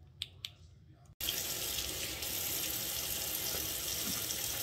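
A few light clicks, then, starting abruptly about a second in, a kitchen faucet runs steadily into a stainless steel bowl in the sink while a raw pork roast is washed in it by hand.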